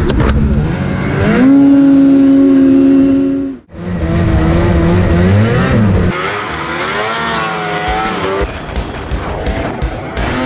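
Snowmobile engines revving: a rise to a high, steady pitch, then several quick revs up and down. The sound cuts out abruptly for an instant about four seconds in before the revving resumes.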